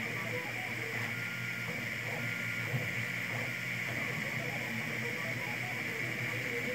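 Anet A8 3D printer running a print: a steady fan hiss, with a few short whining tones from the stepper motors as the print head moves.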